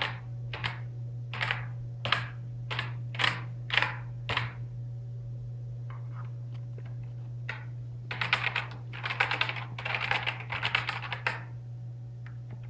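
Computer keyboard being tested: single keys pressed one at a time, a little under two a second, then a few seconds later a burst of fast typing.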